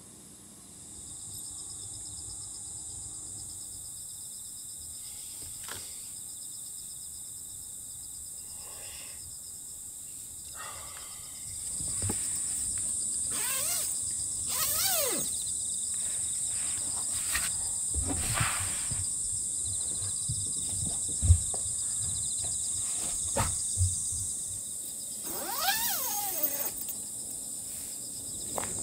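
A steady, high-pitched chorus of insects that grows louder about a third of the way in. Over it come scattered clicks, knocks and rustles of hands handling a mesh net and gear at the van's open back door, the loudest a single sharp knock about three-quarters of the way in.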